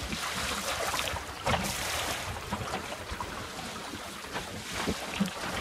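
Water rushing and splashing along the hull of a small wooden sailboat under sail through choppy swell, with wind on the microphone. A louder slap of water comes about a second and a half in.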